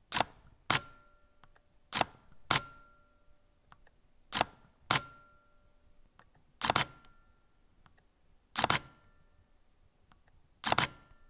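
Nikon D3400 DSLR's mirror and shutter firing six times. The first three exposures are at 1/2 second, each heard as two clacks about half a second apart as the mirror and shutter open and then close. The last three are at 1/15 second, where the two clacks nearly merge into one double clack.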